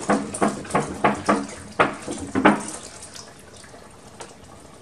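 Water pouring from a plastic jug into the top of a stacked plastic planter, glugging in quick irregular gulps, then settling into a quieter steady pour about two and a half seconds in.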